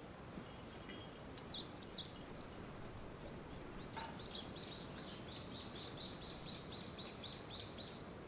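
Small songbirds calling over a steady hiss of distant sea surf. Two quick downward-curving notes come first, then, from about halfway, a fast run of repeated high chirps, about four a second.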